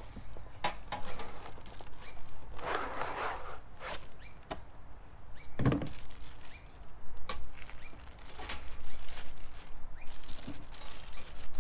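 A box and its packaging being handled and opened: scattered taps and knocks, a rustle about three seconds in, and a heavier thunk near six seconds.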